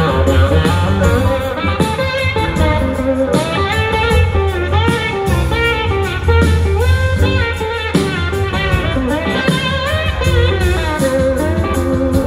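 Live rock band playing, with an electric guitar lead of gliding, bending notes over bass and drums.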